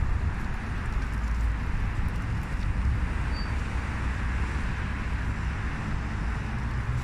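Steady city traffic noise: a low rumble under an even hiss, with no single vehicle standing out.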